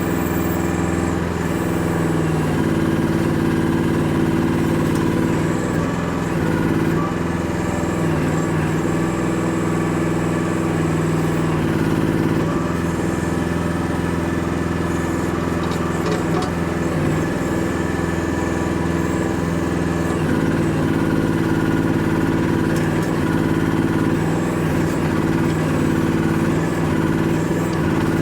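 Small engine of a Chinese micro excavator running steadily while the machine digs. Its pitch sags briefly now and then as the hydraulics take load.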